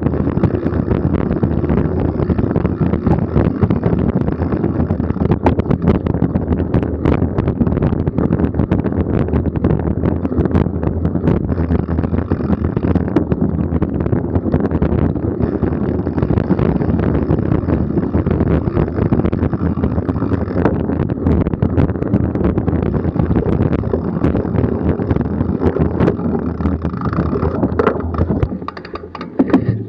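Wind buffeting the camera microphone over the rumble and rattle of a mountain bike riding a dirt and leaf-covered forest trail, with many small knocks from bumps. The noise drops sharply near the end as the bike comes to a stop.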